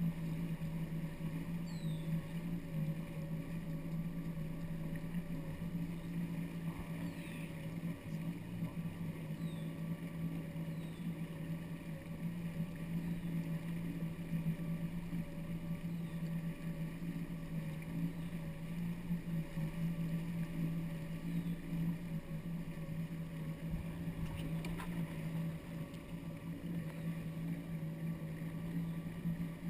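Yamaha WaveRunner jet ski engine running steadily at low speed, a constant even drone with water washing along the hull.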